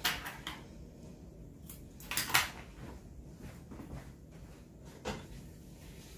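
Handling noises as washi tape and scissors are worked over a plastic-covered diamond-painting canvas: a few short rustles and clicks, the loudest a brief scrape about two seconds in.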